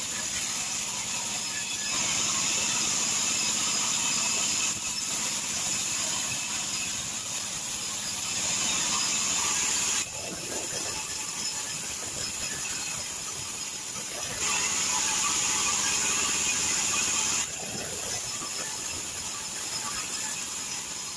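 Sawmill band saw running steadily, its blade cutting through a log. Three times the sound grows louder with a bright high hiss for a few seconds, then drops back to the lower running noise.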